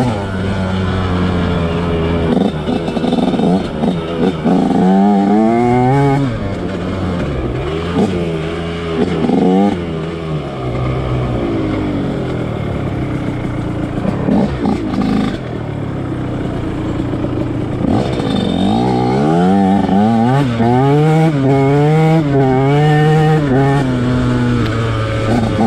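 Two-stroke dirt bike engine revving up and falling off again and again as the throttle opens and closes on a trail ride.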